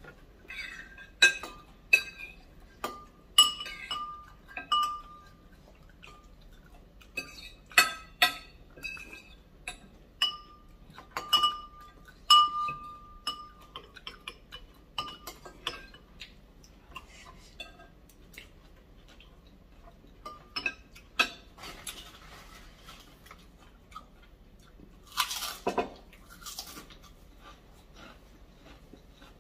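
Cutlery clinking against a bowl while eating meatball soup: a string of sharp, ringing taps, closer together in the first half and sparser later. There is a brief, noisier sound about 25 seconds in.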